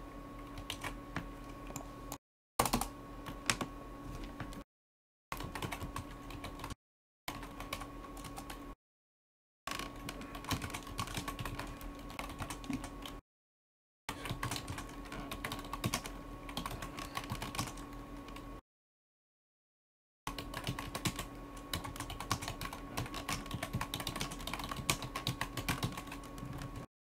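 Typing on a computer keyboard: stretches of quick, irregular key clicks over a faint steady hum, cutting out to dead silence about six times.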